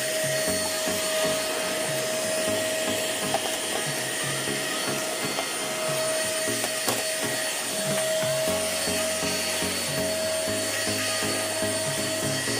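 Deerma DX700 handheld vacuum cleaner running continuously while cleaning, a steady whine over a rushing hiss.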